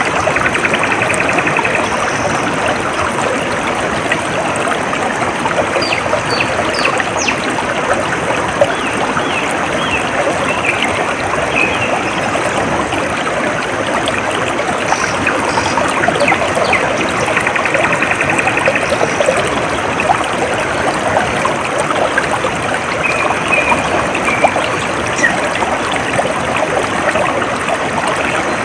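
Shallow stream water trickling and babbling steadily, with a few faint short bird calls and a brief high trill now and then.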